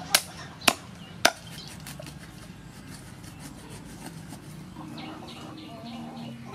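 Meat cleaver chopping through a whole fish onto a wooden chopping block: three sharp chops about half a second apart, followed by fainter taps and knocks.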